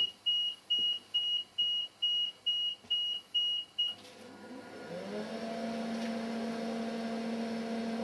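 Nine short, evenly spaced electronic beeps at about two a second. About five seconds in, a steady electrical hum starts, slides up in pitch and settles as the variac is wound up to full mains voltage of about 240 V.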